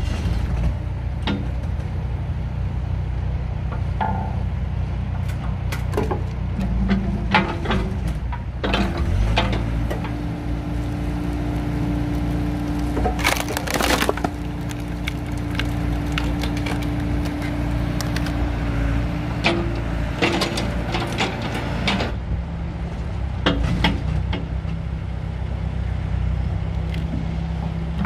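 A Volvo mini excavator's diesel engine runs steadily and revs up under load about nine seconds in, with a steady hydraulic whine for about ten seconds. Meanwhile its hydraulic log splitter forces a log through a cross-shaped wedge, and the wood cracks and splinters in many sharp cracks.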